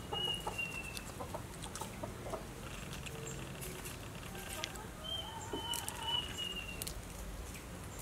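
Chickens calling in the background, two drawn-out, slightly falling calls, one at the start and one about five seconds in, with scattered light clicks as food and lettuce are handled.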